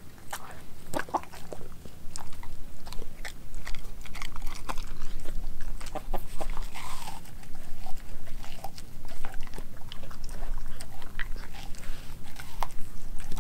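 A dog chewing and biting into a chunk of raw meat: a wet, irregular run of clicks and crunches.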